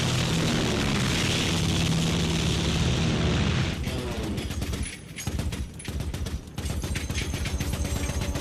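Film soundtrack of WWII bombers: twin-engine B-25s' radial piston engines droning steadily as they take off. About three and a half seconds in it cuts to a quieter bomber interior, and near the end rapid machine-gun fire starts.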